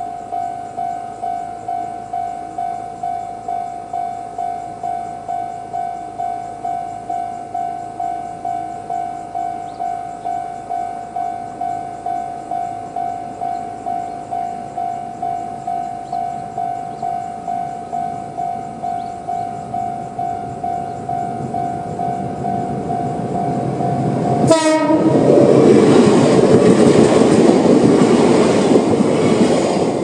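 Level-crossing warning bell of the older electronic type, dinging about one and a half times a second. About 24 seconds in, a Chichibu Railway 5000 series electric train gives a short horn blast and runs through the crossing, its wheel and rail noise covering the bell.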